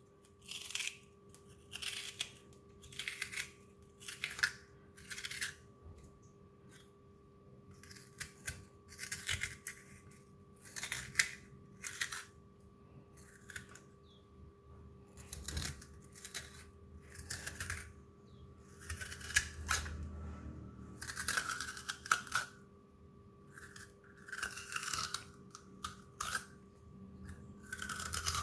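A teaspoon scraping and scooping the raw flesh out of a white radish to hollow it into a cup, in short repeated scrapes, roughly one a second, with a few pauses.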